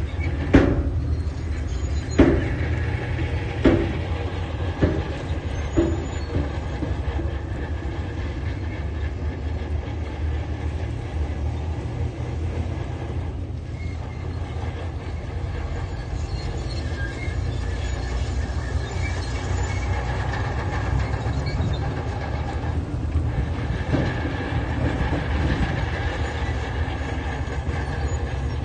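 Diesel engine of a tracked earthmoving machine running steadily under load, with sharp clanks of its steel tracks and gear, about one every second and a half over the first few seconds and once more near the end.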